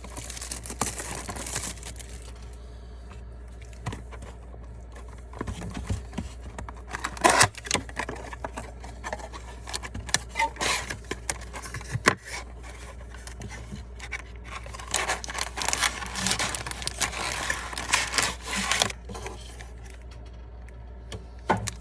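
Hands unwrapping and opening a sealed trading-card box: scraping, tearing and crinkling of plastic wrap and cardboard in irregular bursts, with a few sharp clicks, over a steady low hum.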